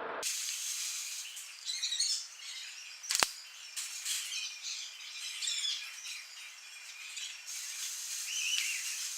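Birds chirping, many short high calls, with one sharp click about three seconds in.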